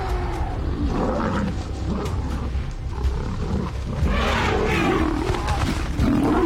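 Lions growling and snarling as the pride attacks an elephant, the loudest bout of growls coming about four seconds in.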